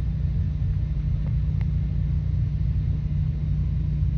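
Steady low rumble, with a single faint click about a second and a half in.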